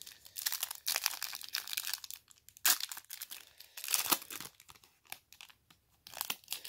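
Foil wrapper of a trading-card pack crinkling and tearing as it is pulled open by hand, in several bursts with short pauses, the loudest a sharp crackle near the middle.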